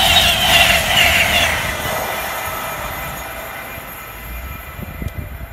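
Express passenger train's coaches rushing past at speed: steel wheels on rail with a ringing, hissing edge that pulses about twice a second as the bogies go by. The noise fades away from about two seconds in as the train draws off.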